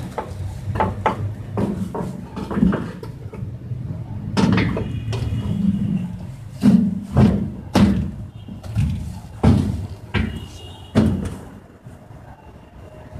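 Sheet-metal cover panels of a generator canopy being fitted and shut: a string of knocks and clanks with a short metallic ring, and several louder slams in the second half.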